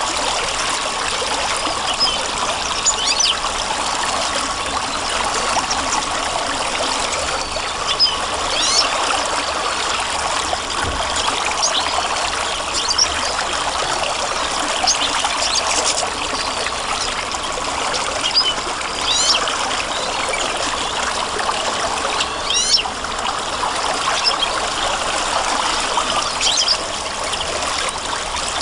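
Steady rush of a flowing stream, with short high bird chirps every few seconds.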